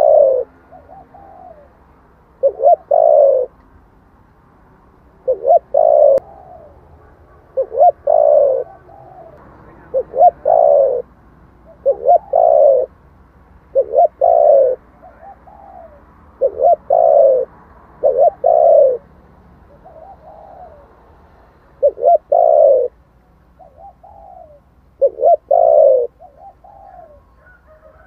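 Spotted dove cooing over and over: loud phrases of two or three notes, each with a falling pitch, come about every two seconds, with fainter coos between them.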